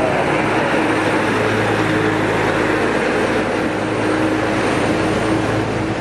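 A vehicle engine running steadily: a constant low drone with an even hum under it.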